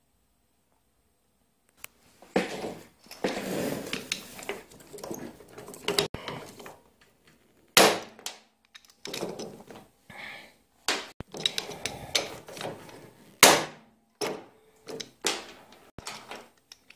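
Dent-repair tools being handled on a sheet-metal workbench, starting about two seconds in: rustling, scraping and clattering with several sharp knocks, the loudest about halfway through and again near the end.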